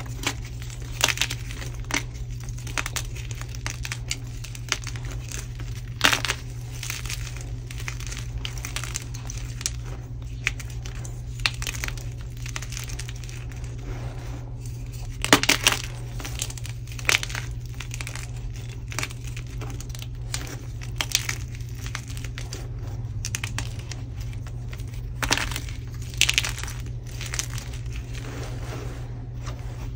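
Dyed gym chalk block broken and crushed by hand: dry crunching and crumbling throughout, with a few louder cracks as chunks snap, the loudest about halfway. A low steady hum runs underneath.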